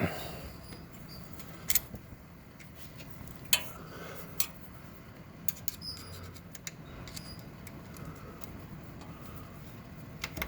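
A few sharp metallic clicks and clinks, the loudest about two and three and a half seconds in, with smaller ticks between, as the push-button shifter cable is worked loose from the transmission by hand.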